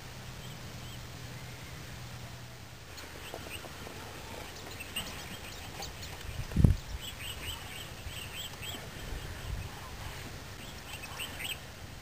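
Birds chirping in the background: many short, high calls repeated irregularly from about three seconds in. A single loud low thump comes just past the middle.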